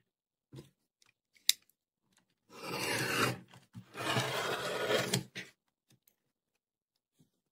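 Rotary cutter run along a quilting ruler, slicing through the edge of a felted wool flannel quilt against a cutting mat in two strokes of about a second each. A couple of light clicks come just before the cuts.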